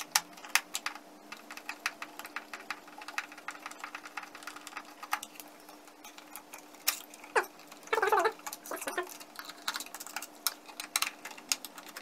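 Rapid small clicks and scrapes of a screwdriver backing screws out of a 360 S7 robot vacuum's drive-wheel module, then plastic clicking and knocking as the wheel assembly is pressed and worked loose from the vacuum's underside, with a few louder clicks past the middle.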